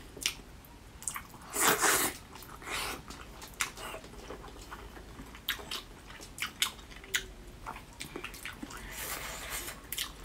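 Close-up chewing and biting of a soft pork skin roll, with many short wet mouth clicks and smacks. A louder rush of noise comes about two seconds in.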